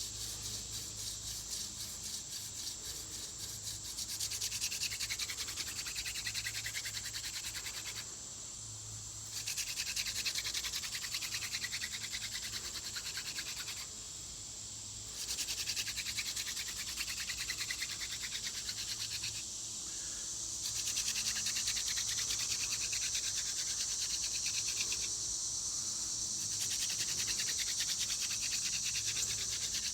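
Hand-drill fire-making: a horseweed spindle spun rapidly back and forth between the palms, rubbing into a decayed tulip poplar fireboard with a fast, dry rasping whir. It comes in runs of several seconds, with a short pause four times as the hands go back to the top of the spindle. The friction is working toward an ember.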